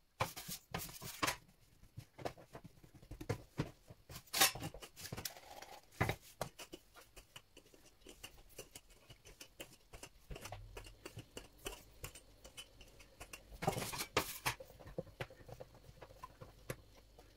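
Wooden rolling pin and hands working bread dough on a floured stainless steel worktop: irregular light knocks, taps and scuffs, with a few louder bursts of noise.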